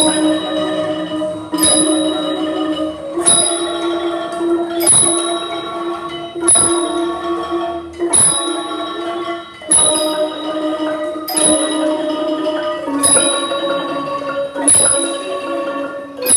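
A Thai mallet instrument played in kro, the rapid tremolo roll, on one note at a time. It moves to a new pitch about every second and a half through a scale exercise.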